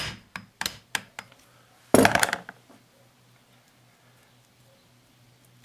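Steel cap bolts and a wrench clinking as they are handled and set down on the bench while the differential's carrier bearing caps are unbolted: a few quick metallic clinks in the first second or so, then a louder clatter about two seconds in.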